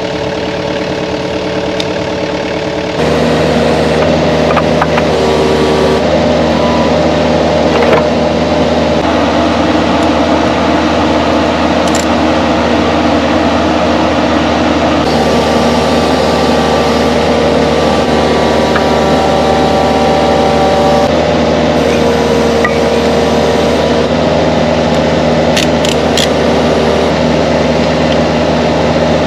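Kubota mini excavator's diesel engine running steadily, its tone shifting at a few points, with a few light clicks over it.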